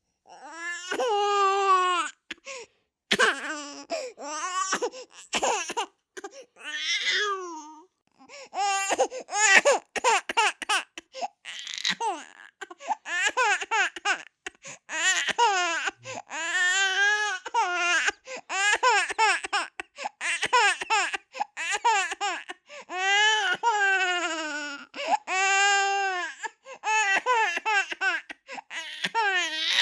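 A baby crying in a run of wails, each rising and falling over a second or two, with short breaks for breath between them.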